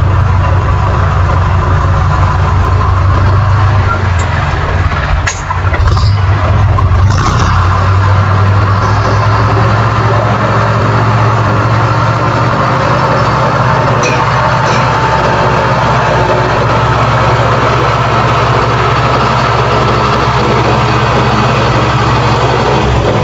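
Old tractor engine running steadily with a low-pitched note. It dips briefly with a few sharp clicks about five to seven seconds in, then settles back into steady running.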